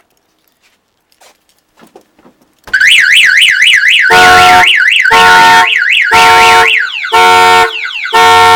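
Car alarm siren going off on a 1986 Chevrolet Monte Carlo, a few faint clicks before it. About three seconds in it starts with a loud, fast warble rising and falling several times a second. After about a second and a half it switches to loud blasts about once a second.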